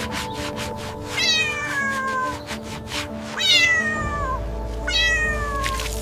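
A cat meows three times, each meow starting high and sliding down in pitch, over background music with a steady beat.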